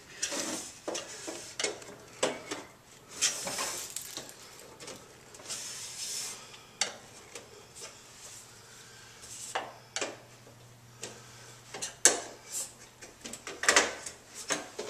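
A screwdriver prying snap-on anodized metal door casing off its clips on a metal door frame: irregular metallic scrapes, rattles and clicks as the clips pop loose, with one sharp click about twelve seconds in.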